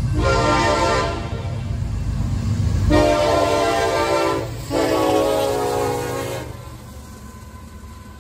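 Diesel freight locomotive's multi-note air horn sounding for a road crossing: a short blast, then a long blast with a brief break in it. A low rumble from the approaching train runs underneath and eases off once the horn stops.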